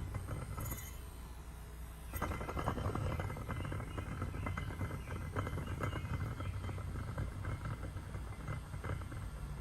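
Porsche 993 running with a worn fan bearing: a steady low hum under a dense, fast rattling. It gets louder about two seconds in.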